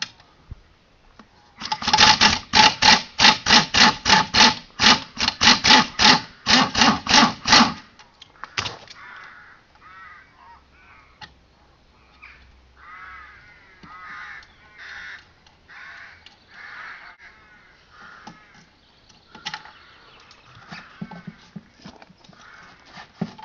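Cordless power driver with a socket undoing the 17 mm mounting bolt of a quad's rear shock absorber: a loud run of repeated strokes, about four a second for some six seconds. After that, quieter clinks and knocks of the parts being handled.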